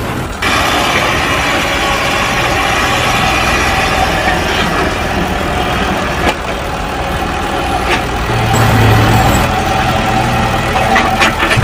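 An engine running steadily at idle, with a few short clicks over it.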